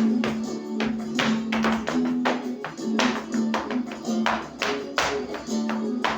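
Flamenco music in the tangos rhythm, a held melody line over sharp percussive strikes about three a second.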